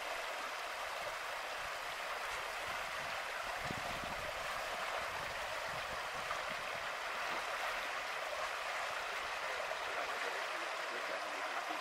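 Water rushing steadily through a concrete spillway and its culverts, a constant even hiss.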